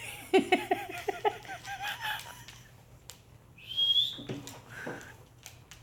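A pet animal squeaking: a quick run of short, high squeaks, then a single whistle-like cry about three and a half seconds in.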